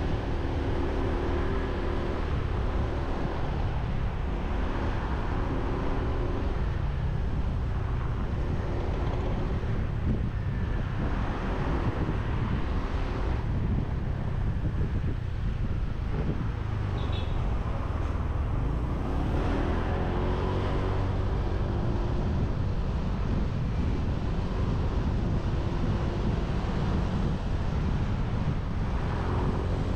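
Motorbike engine running under way, its note rising and falling in several stretches as the throttle changes, over a steady low rumble of wind buffeting the on-board camera's microphone.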